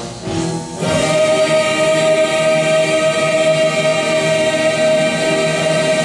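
A choir singing, settling about a second in onto one long held chord.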